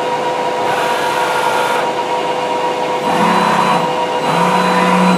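Harrison Alpha 1400XS CNC lathe traversing its carriage along the Z-axis at maximum feed rate: a steady mechanical whine with constant tones. About three seconds in a lower hum joins, stops briefly, then comes back.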